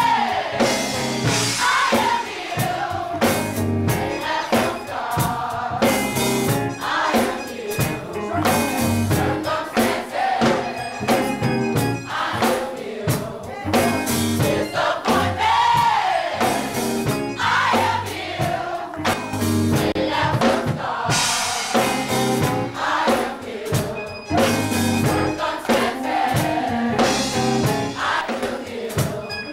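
Gospel choir of children and adults singing together, over a steady beat.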